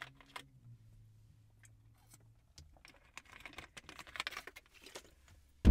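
Small clicks and crinkling of a plastic water bottle being handled and its cap twisted, ending in one sudden loud knock.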